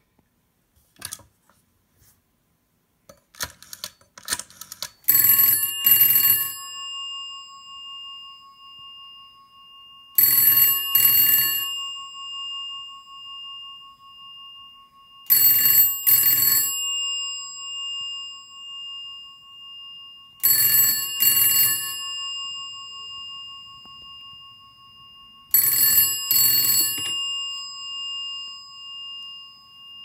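GPO 322 Bakelite telephone's bell ringing in the British double-ring cadence ("brring-brring", pause), five double rings about five seconds apart starting about five seconds in. The bell tone hangs on and fades between rings. A few light clicks come before the ringing.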